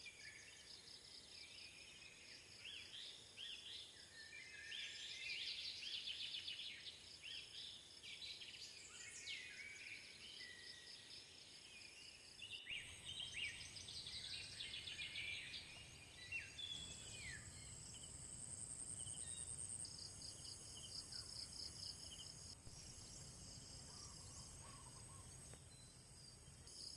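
Birds chirping and singing over a steady high drone of insects. About halfway through the sound changes abruptly and a faint low rumble joins in.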